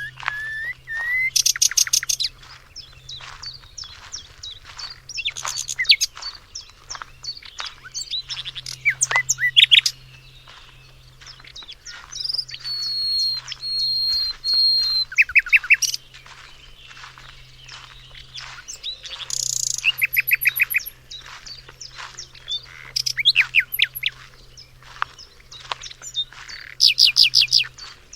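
Several songbirds singing, with rapid trills of quickly repeated notes and short whistled phrases coming one after another, over a faint steady low hum.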